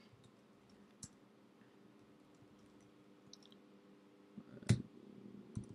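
A few scattered keystrokes on a computer keyboard: one faint click about a second in, then a louder key press and a second one shortly after, near the end.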